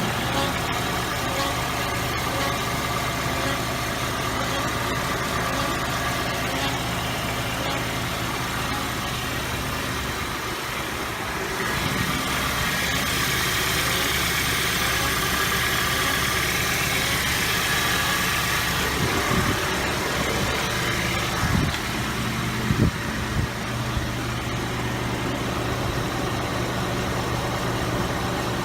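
2014 Kia Sorento running, with a faint chirp repeating as the wheels turn. The cause is front brake rotors with excessive lateral runout. A few short knocks come about three-quarters of the way through.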